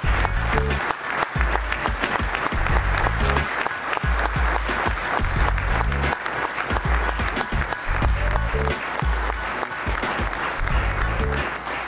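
Audience applauding, with background music carrying a heavy bass beat underneath.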